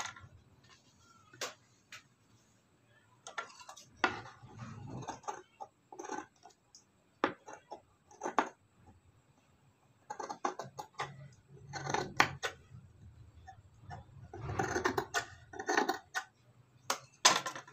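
Large steel tailor's scissors cutting cloth in short snips, the blades clicking shut, in irregular bursts with pauses between.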